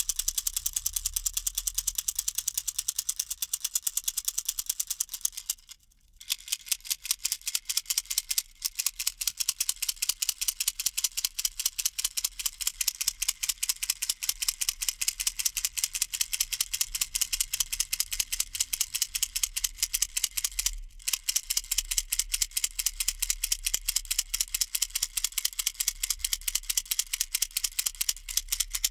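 Plastic baby rattle (kolotushka type) shaken steadily, its beads clicking rapidly in an even rhythm with a crisp, bright sound. It stops for about half a second about six seconds in and briefly again about 21 seconds in.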